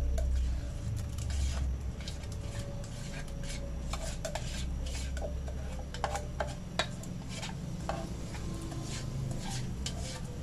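Ground chilli spice paste being scraped out of a stainless steel bowl into a wok, with irregular scraping and sharp metal clinks and taps against the bowl. A low steady hum runs underneath.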